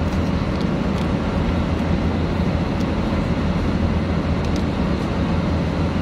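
Steady drone of an airliner's cabin in flight, the engine and airflow noise strongest in the low range. A few faint crinkles of a plastic snack wrapper in hand sit on top of it.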